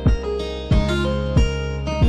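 Background music: acoustic guitar over a steady beat.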